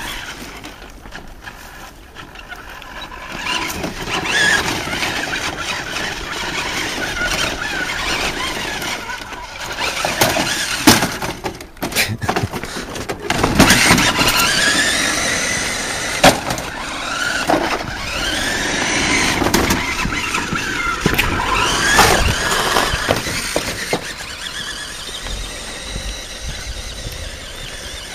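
Radio-controlled Hummer H2 toy truck's electric motor and gearbox whining, the pitch rising and falling again and again as it speeds up and slows down. Several sharp knocks come in the middle.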